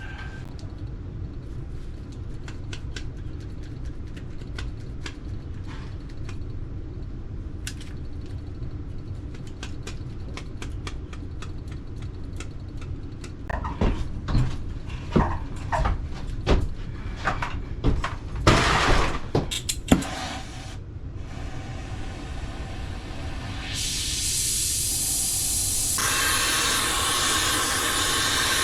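Hand work on HVAC equipment: scattered clicks and knocks of tools and metal parts over a steady low rumble, busiest in the middle. About 24 seconds in, a steady rushing hiss of gas starts, and it gets louder a couple of seconds later.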